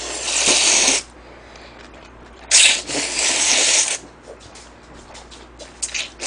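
A person slurping jjamppong noodles, two long loud slurps: one in the first second and another from about two and a half to four seconds in, with faint chewing clicks between them and a third slurp beginning at the very end.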